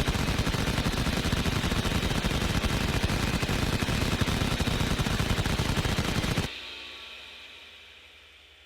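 M61 Vulcan six-barrel 20 mm rotary cannon firing one long continuous burst, a dense rapid ripple of shots lasting about six and a half seconds that cuts off suddenly. A fading whine from the still-spinning barrels follows.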